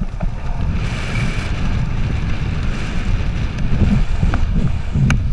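Wind buffeting the microphone of a handcam during a tandem parachute descent under canopy, a dense low rumble. A single sharp click near the end.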